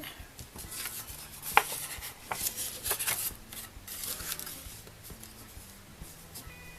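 Cardstock being handled and folded: papery rustling and rubbing, with a few light taps, the sharpest about one and a half seconds in.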